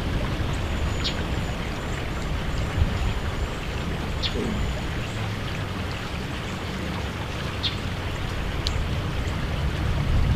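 Steady wind rush with a low rumble of wind on the microphone, with a few faint, short high ticks scattered through it.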